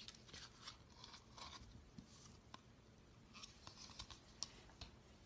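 Homemade glue slime being kneaded and squished by hand, giving faint, irregular sticky clicks and crackles.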